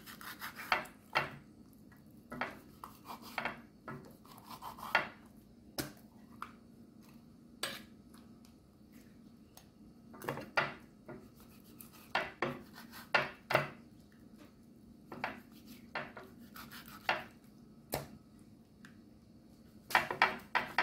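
Kitchen knife scoring the scaled skin of whole red snapper in a dish: a run of short, irregular scrapes and clicks, bunching up near the end.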